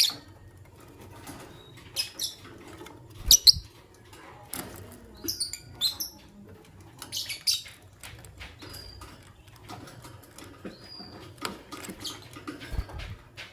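Lovebirds giving short, sharp, high chirps in scattered clusters, the loudest about three and a half seconds in, with faint clicks and taps between them.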